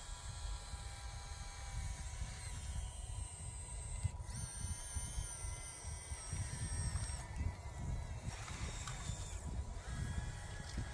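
Small electric motors of an RC-converted Bruder toy excavator whining steadily in stretches as it works, the clearest run from about four to seven seconds in. Under it runs a low, uneven rumbling noise.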